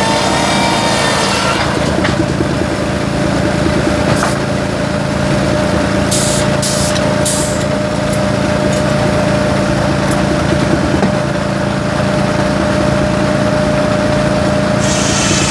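Sawmill running: the engine powering it chugs steadily under a steady higher whine from the spinning saw. Three short hissing bursts come about halfway through.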